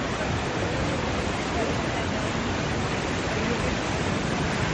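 Fast-flowing floodwater of the swollen Godavari river rushing steadily, with indistinct voices of people mixed in.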